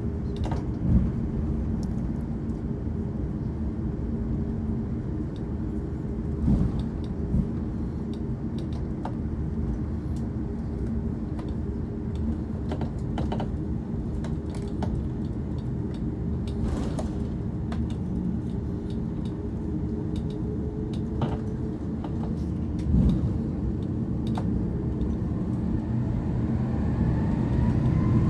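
Cabin sound of an Airbus A340-600 taxiing onto the runway: a steady hum from its four Rolls-Royce Trent 500 engines at low power, with occasional light clicks and knocks inside the cabin. Near the end a rising whine sets in and the sound grows louder as the engines spool up for the takeoff roll.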